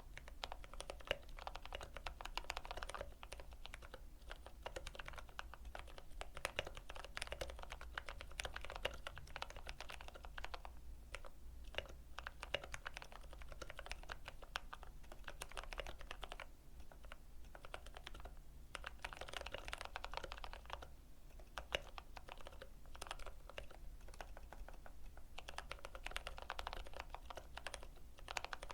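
Typing on a Keychron K8 mechanical keyboard with lubed brown switches: a dense run of key clacks in fast stretches, with a few brief lulls.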